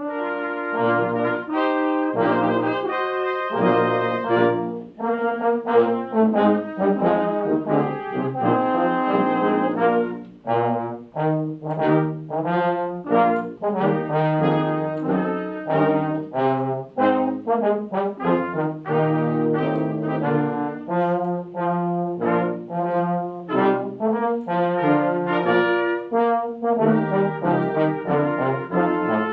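A brass sextet with trumpets starts a piece. It plays long held chords for about the first ten seconds, then moves to shorter, detached notes in a steady rhythm.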